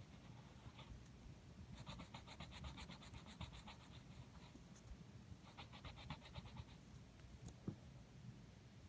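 Pencil scratching on paper in quick back-and-forth strokes, faint, shading in a drawing. There is a run of about two seconds, then a shorter run of about a second, and a single soft tap near the end.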